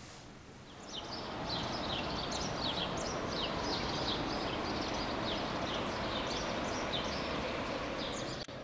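A songbird singing a run of short, falling chirps, about three a second, over a steady hiss of outdoor background noise. Both start about a second in.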